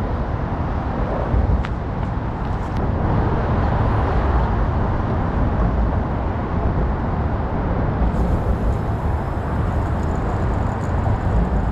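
Steady low rumble of road traffic on the bridges overhead.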